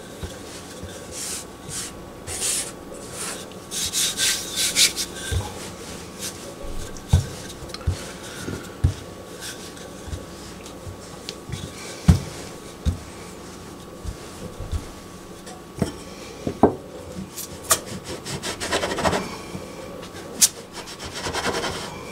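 A wooden rolling pin rolls pie dough out on a floured granite countertop: repeated rubbing strokes with scattered knocks as the pin and hands meet the counter. Near the end a round metal cutter grinds against the stone as it twists through the dough to cut out circles.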